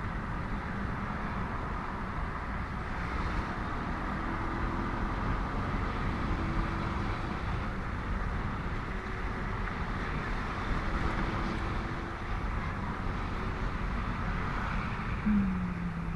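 Steady riding noise from a motorcycle on a highway: wind rush and engine and road drone, with faint engine tones of other vehicles passing in traffic.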